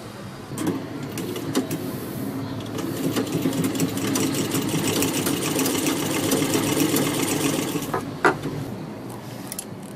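Sewing machine running and stitching a fabric appliqué piece: a rapid, steady run of needle strokes that starts about half a second in and eases off near the end, with a sharp click just after eight seconds.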